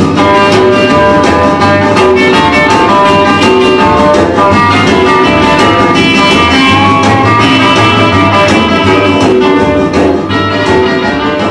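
Instrumental stretch of a rock and roll record playing, led by guitar.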